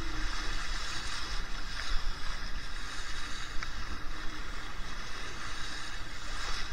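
Water rushing and hissing along the hull of a Laser 2 sailing dinghy under way in strong wind, with wind rumbling on the microphone and a few faint ticks.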